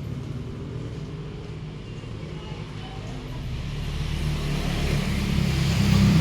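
A motor vehicle's engine running, growing steadily louder over the last few seconds as it comes closer.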